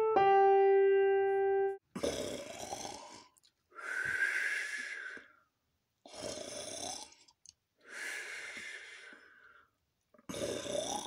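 The last held piano notes, then snoring: rasping in-breaths alternating with breathy out-breaths, five in all at about one every two seconds.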